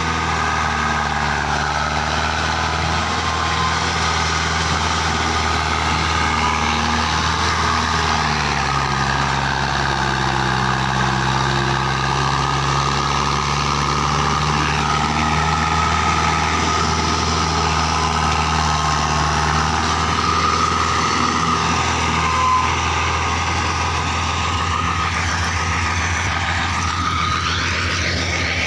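HMT tractor's diesel engine running under load, hauling a heavily loaded sugarcane trailer. It runs steadily, and its pitch drops about eight seconds in.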